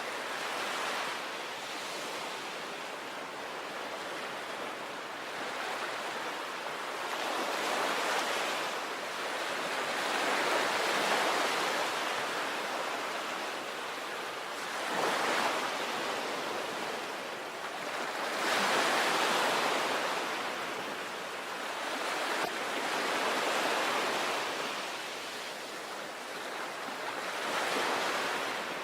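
Sea waves breaking and washing onto the shore, the surf swelling and easing every few seconds with several larger surges, with some wind noise on the microphone.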